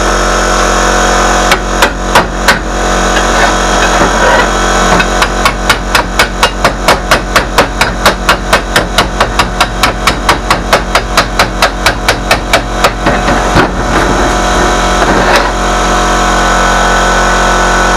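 Hammer blows on steel, a few at first and then a long, even run of about four strikes a second before slowing to a couple more, over a steady hum.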